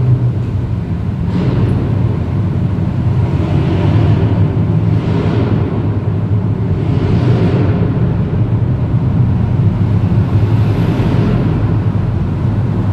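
Road noise inside a moving car's cabin: a steady low rumble from the tyres and engine, with a whooshing hiss that swells and fades every couple of seconds.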